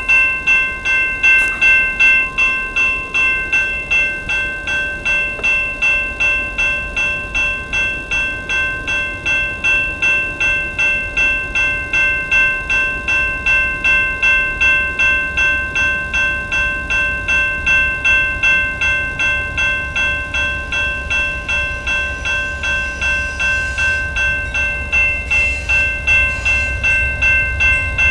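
Railroad grade-crossing warning bell ringing in quick, even strokes, about two to three a second, signalling an approaching train. Over the last several seconds the low rumble of the approaching Amtrak train, led by a P42DC diesel locomotive, grows underneath.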